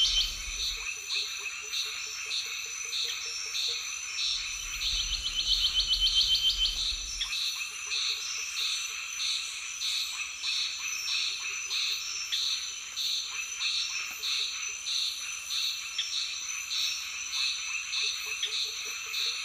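A chorus of calling creatures: a steady high buzz under a call repeated about twice a second. A fast chattering trill sounds right at the start and again from about four to seven seconds in, over a low rumble.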